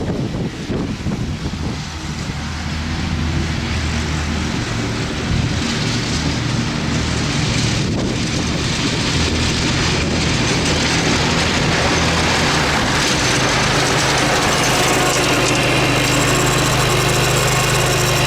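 Dixon zero-turn mower's Kohler engine running, its pitch rising about five seconds in and again near the two-thirds mark, then holding steady at high RPM.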